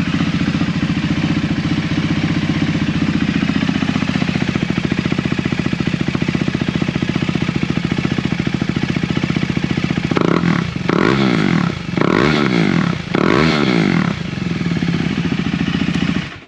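2020 KTM RC390's single-cylinder engine idling through an aftermarket Austin Racing slip-on exhaust, then revved three times with quick throttle blips about ten seconds in, settling back to idle before being switched off near the end. The slip-on gives it a throatier note than the stock exhaust.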